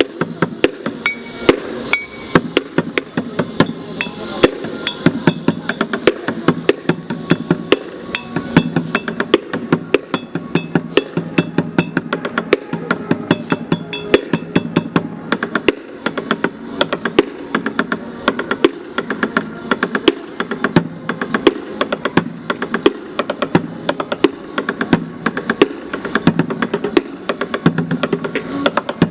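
Street drummer beating fast rhythms on bottles, a rapid, unbroken stream of sharp strikes.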